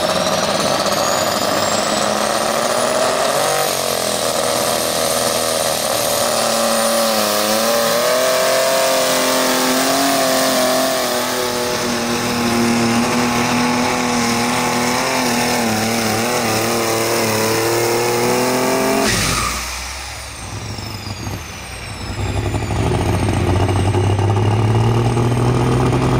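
Super stock pulling tractor engine running hard at full throttle, its pitch wavering as it works against the sled. It cuts off suddenly about two-thirds of the way through. A few seconds later a deeper engine starts running steadily, its pitch creeping up.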